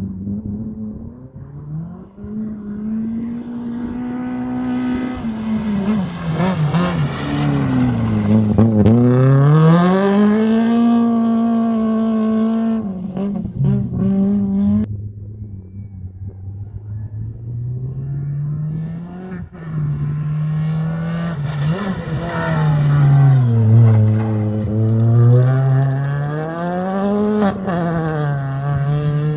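Rally car engines at hard throttle on a gravel stage, their revs climbing and falling through gear changes and lifts. One car's engine is heard first; after a sudden cut about halfway, another car's engine winds up the same way as it approaches.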